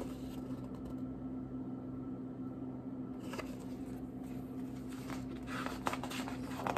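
Steady low hum of room tone, with a few short rustles and taps of a picture book's pages being handled and turned, a little past the middle and again near the end.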